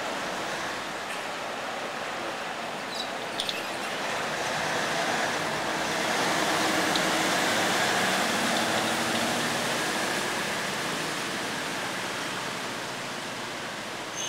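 Canal passenger boat pulling away from the pier: its engine and churning propeller wash swell to their loudest around the middle, then fade as the boat moves off down the canal. A couple of short clicks come about three seconds in.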